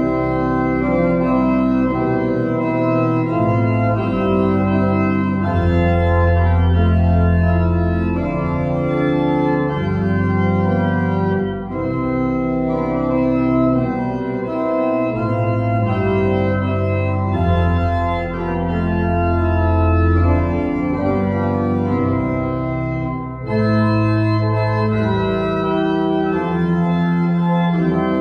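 Pipe organ playing slow, held chords over a deep pedal bass, with two short breaks between phrases, one near the middle and one about four-fifths of the way through.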